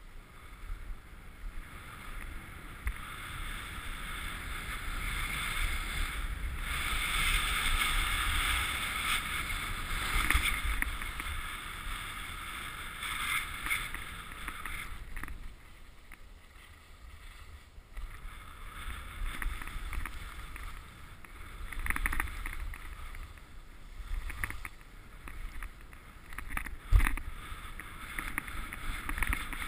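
Snow hissing and scraping under a rider sliding down a groomed slope, with wind rumbling on the microphone. The hiss grows louder from about six seconds in, eases off past the midpoint, and there is a sharp knock near the end.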